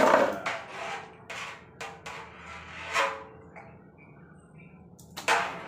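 A metal utensil knocking and scraping against a steel wok, about half a dozen irregular clanks and scrapes, the loudest right at the start, some leaving a short metallic ring.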